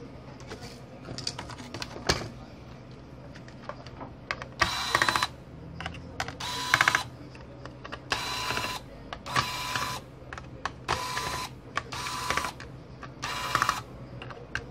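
Small corded electric screwdriver running in short whirring bursts, about seven of them every second or so, with a steady motor whine, as it drives screws on a laptop motherboard. Light clicks and handling noise come before the first burst.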